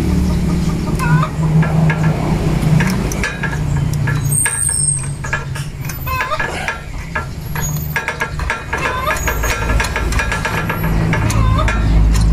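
A small gasoline engine running steadily, with scattered metallic clicks of tools over it.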